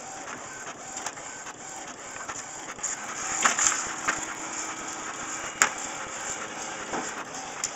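Inkjet all-in-one printer running as it feeds out a printed page, with paper rustling and sharp taps as a cat bats at the sheet. There is a louder rustle in the middle and one sharp click about two-thirds of the way through.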